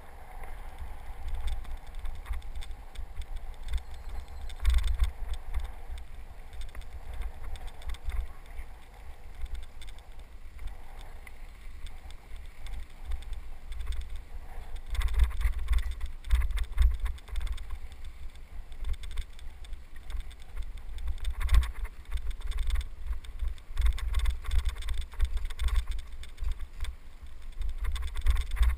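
Wind buffeting the microphone of a helmet camera on a moving bicycle, a rumble that swells and fades unevenly, with knocks and rattles from the bike and tyres on a bumpy dirt trail.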